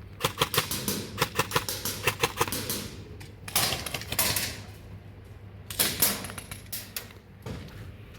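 Airsoft guns firing: a dense, irregular string of sharp clacks for about three seconds, then two short noisy rushes.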